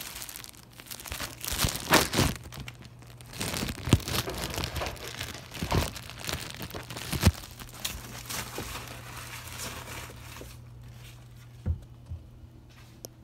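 Plastic bread bag crinkling and crackling as it is handled and opened, with several sharp loud crackles. The crinkling dies away about ten seconds in, leaving a steady low hum and a couple of knocks near the end.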